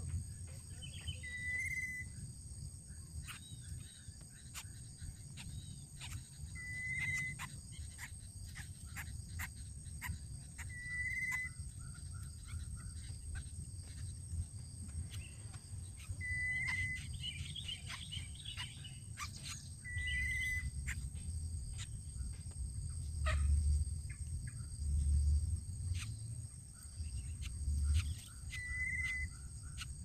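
Outdoor nest-side ambience. A short, high chirp repeats about every four to six seconds over scattered faint clicks and rustles and a steady high insect hiss, and low rumbling swells come and go in the last third.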